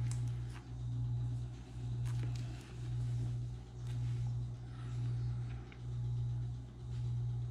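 A low droning hum that swells and fades about once a second, with a few faint clicks and rustles from a plastic-wrapped DVD box set being handled.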